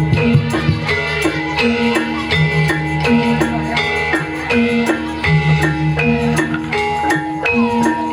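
Javanese gamelan playing for a kuda kepang trance dance: kendang drum strokes over short, repeating figures of struck bronze metallophones.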